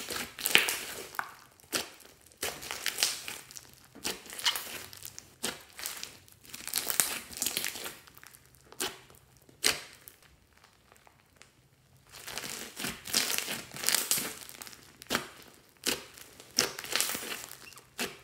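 Hands squeezing and pressing a large mass of slime mixed with foam beads, giving irregular bursts of sticky crackling and sharp pops. There is a quieter pause a little past the middle before the squishing starts again.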